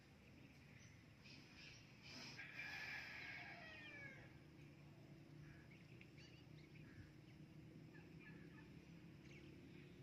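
Rose-ringed parakeet giving a faint, brief warbling chatter about two seconds in, with pitches falling away at the end, after a few soft chirps; otherwise quiet.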